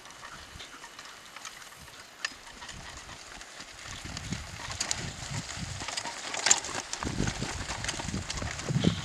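Miniature horse trotting while pulling a two-wheeled cart over dry, rough ground: hoofbeats and the cart's wheels rolling and knocking. The sound grows louder from about four seconds in as the cart comes close.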